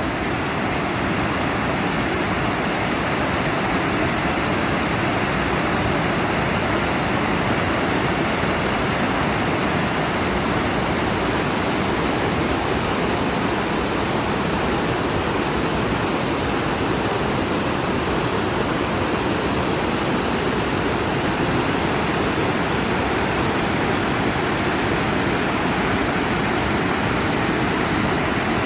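Otsuji Falls, a wide waterfall on the Abukuma River: a steady, dense rush of water falling, unchanging throughout.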